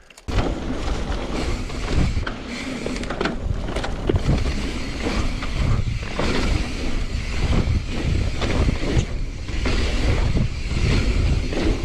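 Mountain bike riding fast down a dirt trail: wind buffeting the on-bike microphone, with steady rumble from the tyres and frame and irregular knocks over the rough ground.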